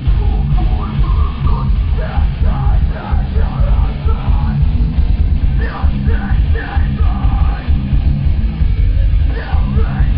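Live heavy metal music: a loud band playing, with a shouted vocal line over it.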